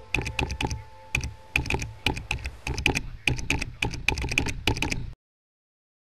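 Typing on a computer keyboard: keystrokes in quick, uneven runs of several a second, which stop abruptly about five seconds in.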